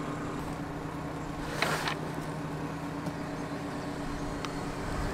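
A motor hums steadily at a constant speed, with a short rustling noise about one and a half seconds in.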